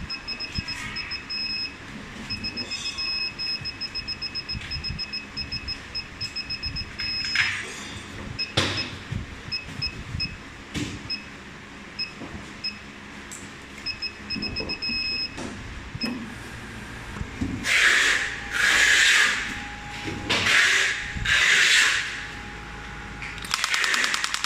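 Shockwave therapy machine's touchscreen giving runs of short, high beeps as the settings are stepped up. Near the end come four loud bursts of hissing, then the pneumatic shockwave handpiece starts firing rapid clicks, about ten a second.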